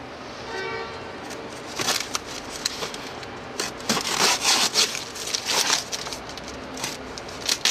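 Styrofoam shipping boxes being handled and opened: a brief squeak of polystyrene rubbing about half a second in, then a run of crackling, rubbing and rustling as the lid and packaging are pulled at, busiest in the middle.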